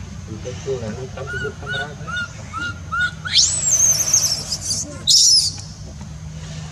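Newborn baby macaque crying: a run of short, high chirping squeaks, then about three seconds in a long, loud, wavering scream that climbs very high, and a second brief shrill scream about five seconds in.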